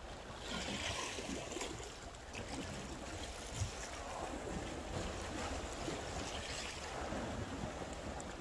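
Small waves washing against shore rocks as a steady wash, with some wind rumble on the microphone. There is a soft knock about three and a half seconds in.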